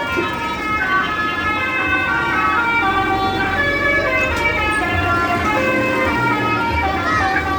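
Indonesian 'telolet' bus horn playing a tune of held notes that step from pitch to pitch, over a low rumble.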